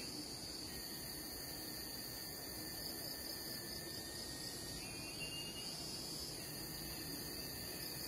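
Steady high-pitched insect chorus, crickets or similar, with a brief faint chirp about five seconds in.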